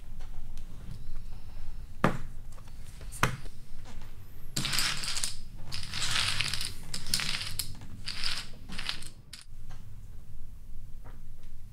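Poker chips being handled at a card table: two sharp clicks, then several bursts of clattering and rattling over about five seconds, over a low steady hum.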